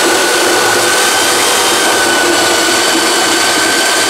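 An electric rotary hammer runs at full speed, turning a hand-crank apple crusher as it grinds a hopper full of apples. A steady high motor whine sits over a dense grinding noise.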